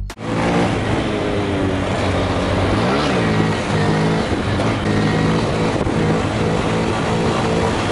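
Honda Grom (MSX125) 125 cc single-cylinder four-stroke engine running under way, its pitch stepping up and down with the throttle, with one quick rise and fall about three seconds in, over a steady rush of wind and road noise.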